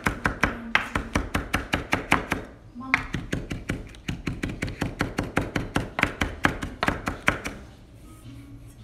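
Chef's knife rapidly chopping parsley on a wooden cutting board, about five strokes a second, with a short break about two and a half seconds in. The chopping thins out and gets quieter near the end.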